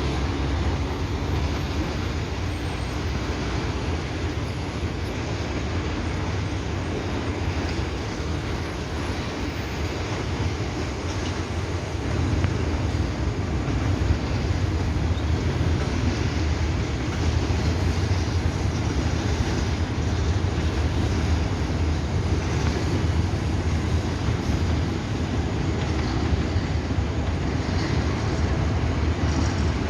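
Grain train hauled by two GE Dash-9 diesel locomotives accelerating hard: a steady low rumble and drone of engines and rolling wagons, which grows a little louder about twelve seconds in.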